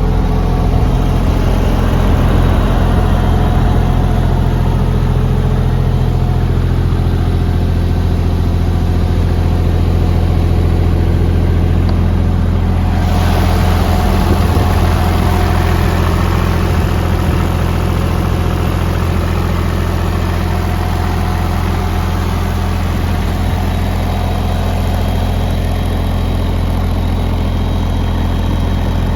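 JCB 8030 ZTS mini excavator's diesel engine running steadily. About halfway through, a higher hiss comes in suddenly over the engine and carries on.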